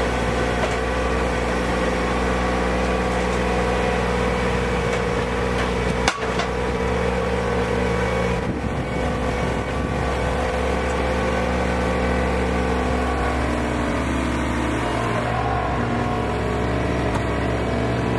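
Machine engine running steadily, with one sharp knock about six seconds in.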